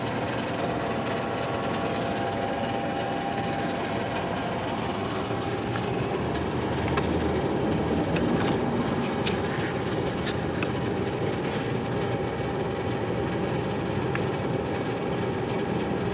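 Steady mechanical running noise with a faint steady tone, and a few light clicks about seven to ten seconds in.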